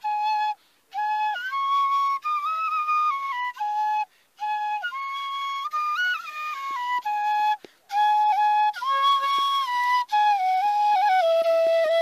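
Bansuri (side-blown bamboo flute) playing a slow solo melody of held notes that step and slide between pitches, with three short pauses in the phrasing.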